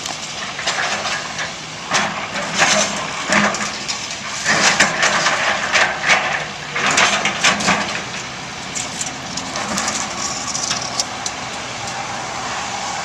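Concrete chunks crashing and clattering into a steel roll-off container as it is loaded, over a heavy-equipment diesel engine running steadily. The crashes come in clusters for about the first eight seconds, then thin out.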